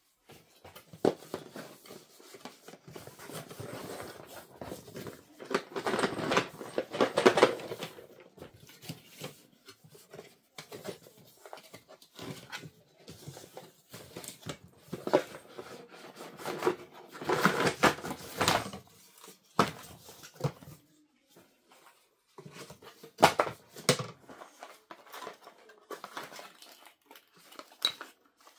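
Cardboard packaging being handled and shifted: irregular rustling and scraping in two longer bursts, with a few sharp knocks.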